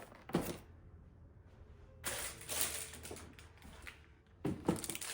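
Boxed toys being handled and set down: a few light clicks and knocks, with a stretch of rustling in the middle.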